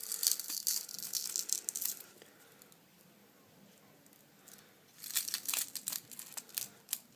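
Crackling and clicking as a phone's glued touchscreen digitizer glass is pushed out of its frame, the glass cracking and the adhesive peeling away. A run of crackles for about two seconds, a pause, then another run of crackles and clicks in the last two seconds.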